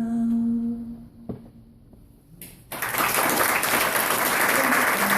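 A last held musical note that fades out about a second in, a short lull, then audience applause breaking out a little past halfway and continuing, greeting the end of the song.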